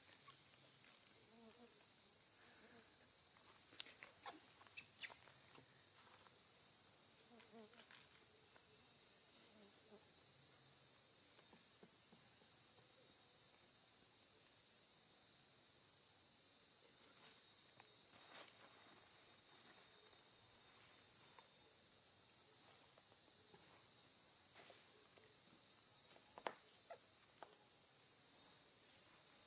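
Steady high-pitched drone of an insect chorus, unbroken throughout. A sharp click about five seconds in, a few fainter ticks just before it, and another click near the end.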